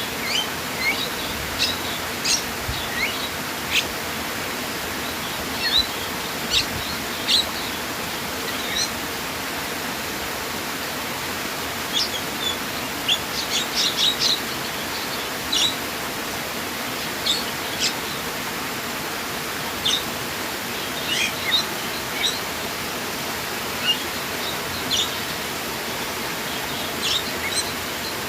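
Steady rush of running water with birds chirping over it in short, high calls scattered throughout; the calls pause for a couple of seconds about a third of the way in.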